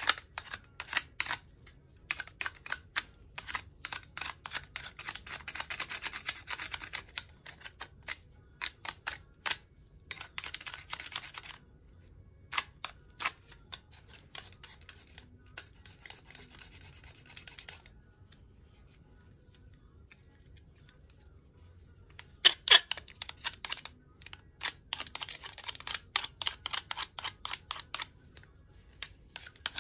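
Handwork on tulsi twigs with a small tool: runs of sharp clicks, mixed with stretches of scraping noise, and a quieter spell about two-thirds of the way through.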